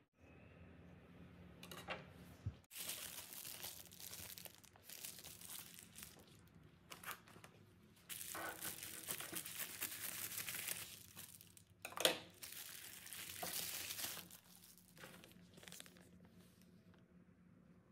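A padded mailer crinkling and tearing as it is handled and ripped open, in uneven bursts. There is one sharp snap partway through, then quieter rustling of a plastic sleeve toward the end.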